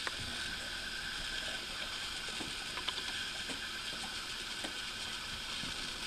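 Steady low room hiss with a few faint, light clicks around the middle.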